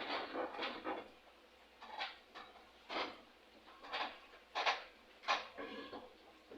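Short, scattered handling clicks and scrapes, about one a second, as a rubber fuel hose and its clamp are worked onto a lawn mower carburetor's fuel inlet.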